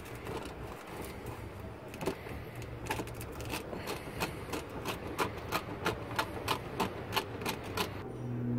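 Socket ratchet wrench clicking as it is worked back and forth on a bolt: a run of sharp clicks, about three to four a second, starting about three seconds in and stopping shortly before the end.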